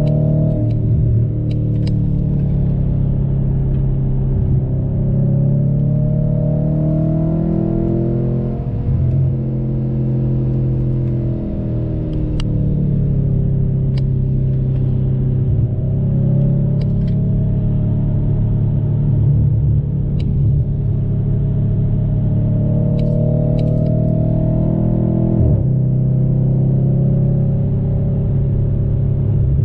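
A 2014 Audi RS5's 4.2-litre V8 running through a Milltek Sport exhaust, heard from inside the cabin. Its pitch rises and falls repeatedly with the throttle through the bends, then drops suddenly near the end. A few faint, sharp clicks sound over it.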